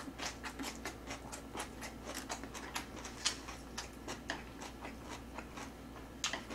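A person chewing food with small wet mouth clicks, about three or four a second, uneven and faint.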